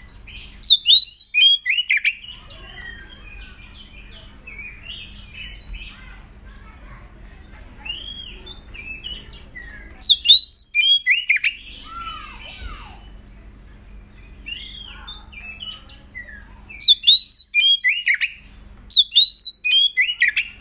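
Oriental magpie-robin singing in an agitated, aggressive way. Bursts of loud, rapid whistled phrases come about a second in, near the middle and twice near the end, with softer warbling between them.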